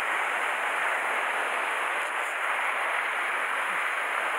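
Sea surf churning and washing over shoreline rocks at close range: a steady, dense rush of foaming water.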